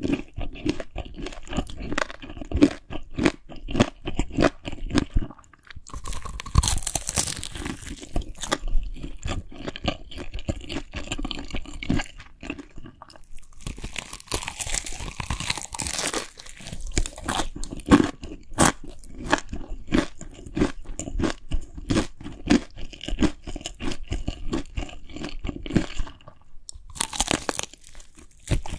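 Close-up crunchy chewing of food, with many rapid crisp crunches, as in an ASMR eating recording. Three times there is a brighter rustling hiss lasting a second or two.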